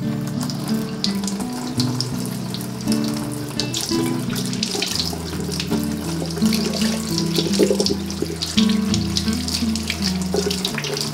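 Kitchen tap running, its water splashing and spattering over yardlong beans and hands as they are rinsed in the sink.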